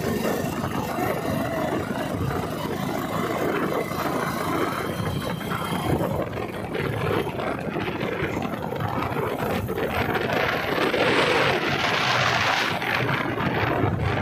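Engine and wind noise from a moving two-wheeler, a steady run with wind buffeting the microphone; the hiss grows stronger in the last few seconds.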